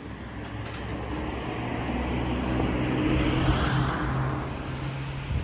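A motor vehicle driving past on the street, its engine and tyre noise growing louder to a peak about three and a half seconds in, then fading away.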